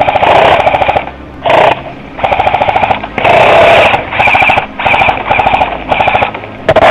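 Airsoft electric rifle firing a string of short full-auto bursts close by, each under a second long with brief gaps between them: the rapid clatter of the gearbox cycling.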